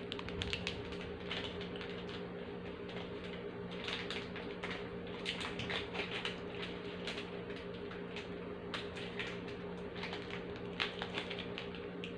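Plastic biscuit wrapper crinkling and crackling as it is handled and torn open, in irregular bursts of small clicks.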